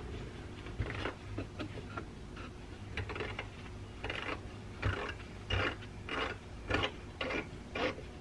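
Metal valve parts and a hand tool being worked on a workbench: a string of short, irregular scrapes and clicks as a disassembled hydraulic control valve's gritty spool is handled.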